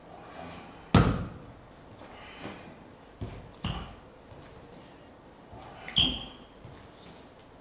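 Sneakers stamping and pivoting on a hard hall floor as a martial artist performs a Chen tai chi form: a sharp thud about a second in, the loudest, then softer ones a little after three seconds and near six seconds, the last with a short shoe squeak. Each echoes in the large room.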